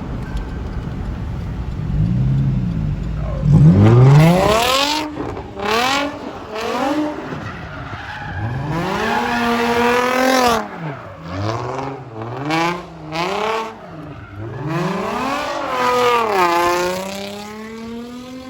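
Car engine revved hard over and over while the car is drifted, its pitch climbing and dropping about once a second, with tyres skidding. Near the end one long rev eases slowly down.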